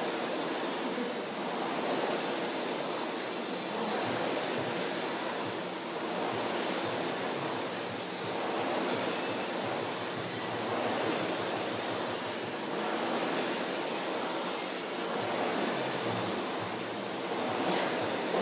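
Concept2 rowing machine's air-resistance fan flywheel whooshing steadily, swelling with each drive stroke about every two seconds.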